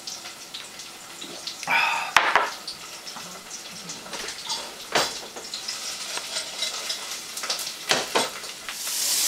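Metal pots, pans and utensils being handled on a stovetop: several sharp clinks and knocks spread out over low background noise, with a brief scraping rasp before the first clink.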